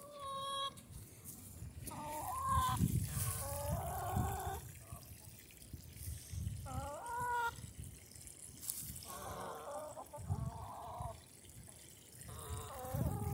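Domestic hens calling: a string of separate drawn-out clucks and squawks, some rising then falling in pitch, over a faint trickle of water from a perforated drip pipe.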